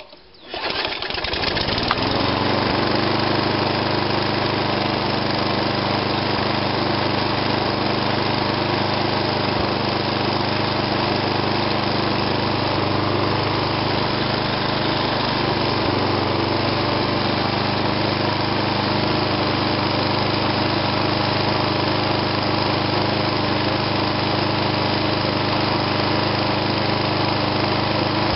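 Mountfield SP470 lawnmower engine pull-started warm, catching at once on its freshly replaced fuel diaphragm and rising to speed within about two seconds, then running steadily.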